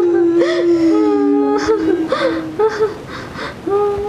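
A woman wailing in grief, long drawn-out cries that waver and slowly fall in pitch, broken by short sobbing breaths.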